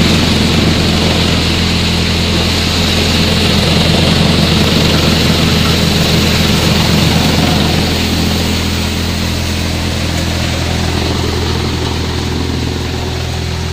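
Hadamba-type threshing machine running at speed: a loud, steady mechanical drone with a constant low hum, easing slightly about halfway through.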